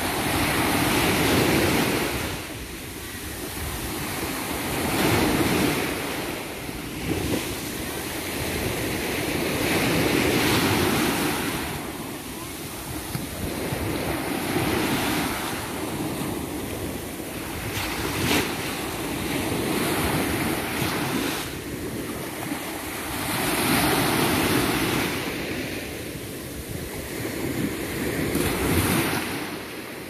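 Small sea waves breaking and washing up a sandy beach. The hiss of the surf swells and fades every four to five seconds as each wave comes in and draws back.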